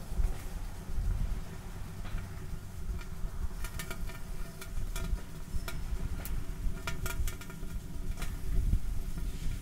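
Small kerosene fire whirl burning on water: a steady low rumble, with a run of sharp crackles and pops from about three and a half to eight and a half seconds in.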